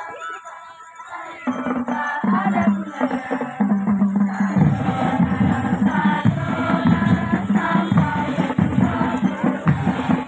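Music with voices singing together, coming in loudly about a second and a half in after a quieter start.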